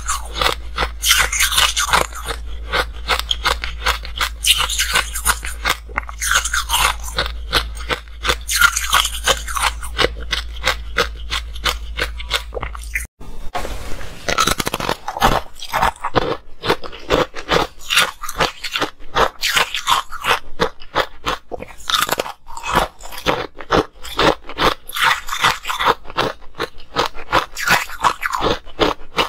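Frozen ice being bitten and chewed, a dense irregular run of crunching and cracking. A low steady hum sits under the first half and stops abruptly a little before halfway.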